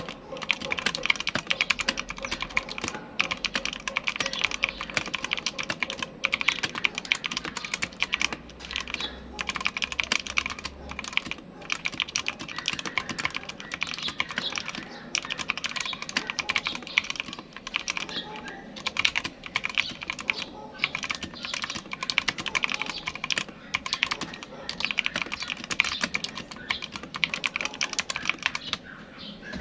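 Typing on a Rakk Lam-Ang Lite mechanical keyboard with freshly lubed stabilizers: a rapid, uneven stream of key clacks with a few brief pauses, played as a sound test.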